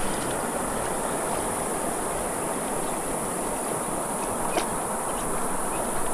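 Steady rush of flowing river water, with a continuous high-pitched insect buzz over it.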